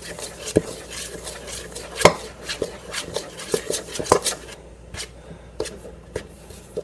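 A spoon stirring in a stainless steel mixing bowl, with irregular clinks and scrapes of metal on metal and louder knocks against the bowl about two and four seconds in.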